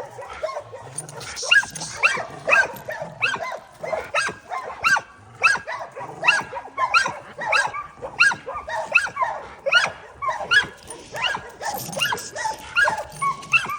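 Pit bulls barking steadily, short sharp barks two to three a second, overlapping as if from more than one dog.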